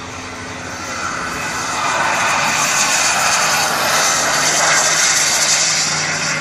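Large RC F-86 Sabre's K-210 model jet turbine at takeoff power: a steady rushing jet hiss with a thin high whine, growing louder over the first two seconds as the jet runs down the runway and passes close by, then holding.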